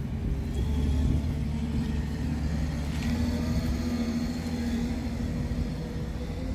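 Scania R450 tractor unit's diesel engine idling steadily, a low, even rumble with a steady hum over it.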